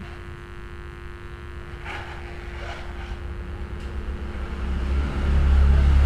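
Low steady background rumble with a faint hum, swelling louder near the end, with a couple of faint clicks about two seconds in.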